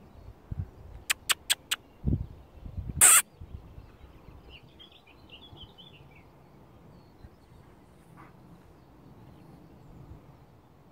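Four quick sharp clicks, a dull thump and a loud brief rustling burst near the start, then faint bird chirping over a quiet rural background.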